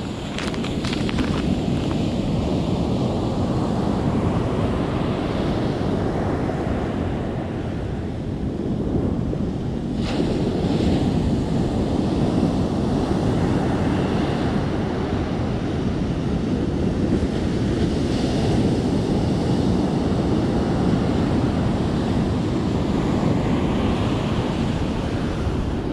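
Ocean surf breaking on a sandy beach, a steady wash of noise with wind buffeting the microphone. A few brief crackles come near the start and a single sharp click about ten seconds in.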